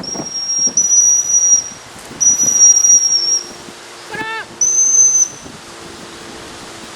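Three long, steady, high-pitched blasts on a dog-training whistle: the first about a second and a half long with a short break, then a second, then a shorter third near the end. A brief falling squeal sounds just before the last blast, all over gusty wind noise on the microphone.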